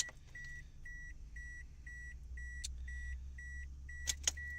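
Car's electronic warning chime beeping steadily, about two short beeps a second, over a low steady hum, with a few sharp clicks, two of them close together near the end.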